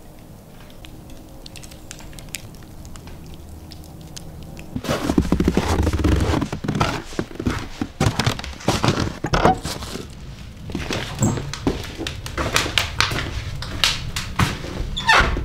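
After about five seconds of quiet, footsteps crunch over a thin layer of snow on leaf litter, with irregular knocks and thumps from a hand-held camera and from steps onto wooden boards.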